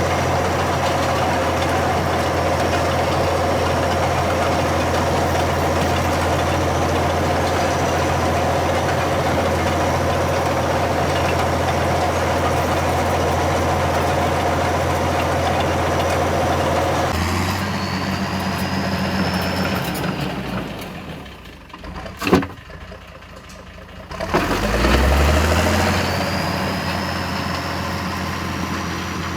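Diesel engine of a 1979 International TD9 crawler dozer running steadily while working. About 17 seconds in the sound changes and falls away for a few seconds, with one sharp knock in the middle, then the engine comes back with a rising note and settles.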